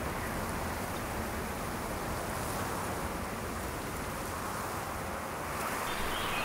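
Steady rushing outdoor ambience, a wind-like noise, with a bird beginning to call near the end.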